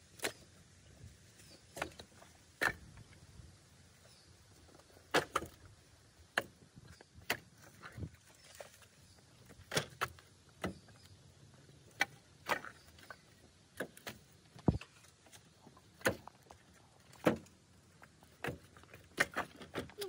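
Split hardwood firewood pieces knocking against each other as they are stacked by hand onto a pallet: sharp, separate wooden clunks at an irregular pace, roughly one a second, some in quick pairs.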